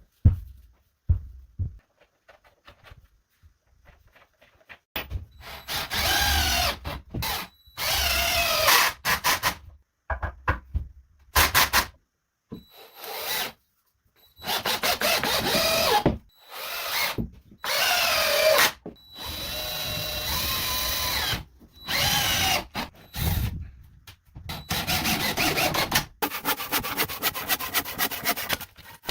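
Power drill running in repeated short bursts of a second or two, with short pauses between, driving into wood. In several bursts its pitch drops as it comes under load.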